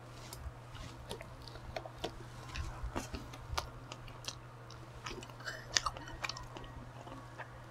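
Close-miked chewing with wet mouth clicks and a few light crunches, irregular, over a steady low hum.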